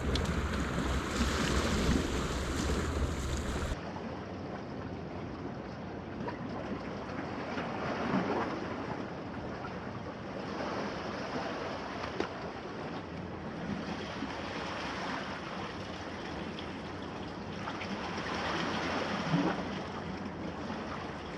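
Sea waves washing on the shore, with wind buffeting the microphone. The low wind rumble stops abruptly about four seconds in, leaving a softer, steady wash of surf that swells a couple of times.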